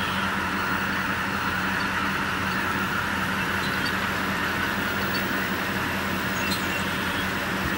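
A huge flock of geese calling in flight, thousands of voices blending into one steady, dense din, over a steady low hum.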